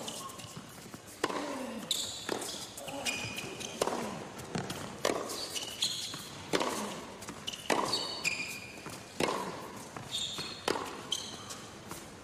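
A tennis rally on an indoor hard court: racket strikes on the ball about every one to one and a half seconds, with shoes squeaking on the court between shots and short grunts from the players.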